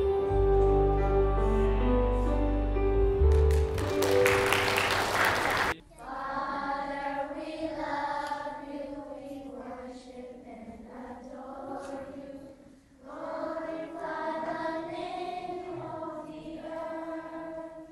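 Song accompaniment holding sustained chords, ending in a burst of noise that cuts off abruptly about six seconds in. A choir then sings a slow song in phrases with short pauses between them.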